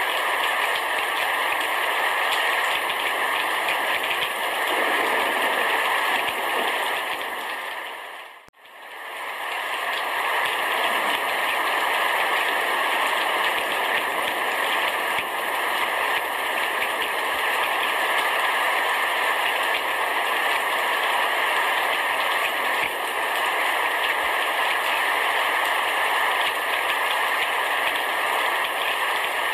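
Heavy rain falling steadily on a roof, a dense even patter. About eight seconds in it fades to near silence and swells back within a second or so.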